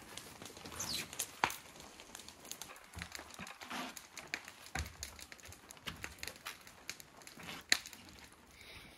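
Tar paper on a roof crinkling and rustling as it is handled and walked on, with scattered light taps and knocks. One sharper knock comes near the end.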